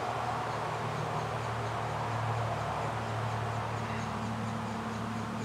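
Steady hum of a colony of Saskatraz honey bees swarming over an open hive's frames, an even, unbroken buzz.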